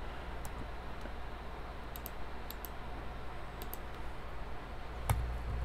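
Scattered clicks of a computer mouse and keyboard keys as a CAD sketch is drawn and a dimension typed in: a handful of sharp clicks, some in quick pairs, the strongest near the end, over a faint low hum.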